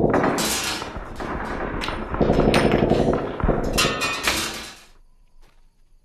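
Bursts of gunfire over a song, stopping about five seconds in.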